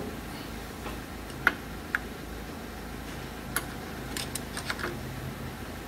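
Scattered sharp clicks and taps, a handful spread irregularly with a small cluster near the end, from parts of a shock absorber and its new top mount being handled and fitted together, over a faint steady low hum.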